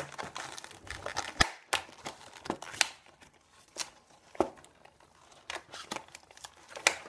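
Cardboard-backed plastic blister pack being peeled and torn open by hand: irregular crinkling and crackling with scattered sharp snaps.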